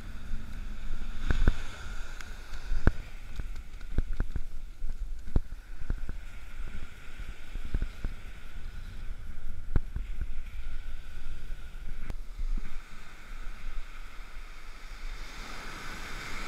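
Ocean surf washing up the beach, with wind buffeting the microphone as a steady low rumble and the wash of water growing louder near the end. About a dozen sharp clicks and knocks are scattered through it.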